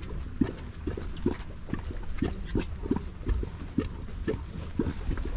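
Hydrothermal mud vent bubbling, in short low grunting blurps about two a second over a steady low rumble.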